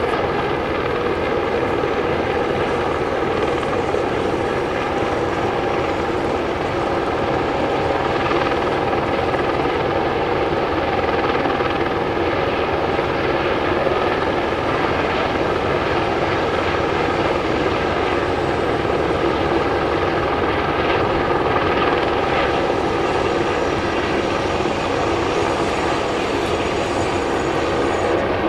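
Rhaetian Railway 'Capricorn' electric train sets rolling steadily at low speed across a stone viaduct: a continuous rumble with a steady hum of several pitches.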